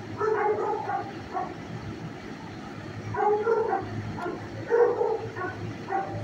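Shelter dogs barking in several short bouts, over a steady low hum.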